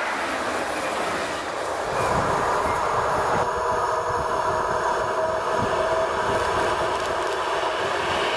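Polregio EN71 four-car electric multiple unit running toward the camera along the track, a steady rumble of wheels on rail with a few steady tones over it. At the very start the sound is of the tail of a different passing train, before a cut about two seconds in.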